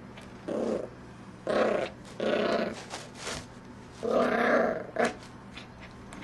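Bichon Frise puppy play-growling over a towel in about five short bursts.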